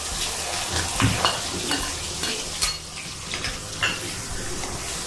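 Freshly added chopped onion sizzling in hot oil in an iron kadhai while a steel spoon stirs it, with a few sharp scrapes and clinks of the spoon against the pan.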